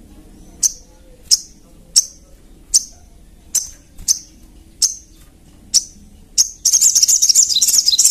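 Sogon (sogok ontong, the little spiderhunter) calling: sharp, high single chip notes about every three-quarters of a second. About six and a half seconds in, they give way to a loud, rapid chattering trill.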